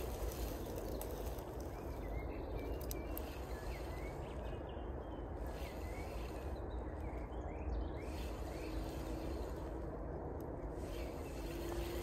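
Steady outdoor background noise with a low rumble, over which a few faint, short bird chirps come and go.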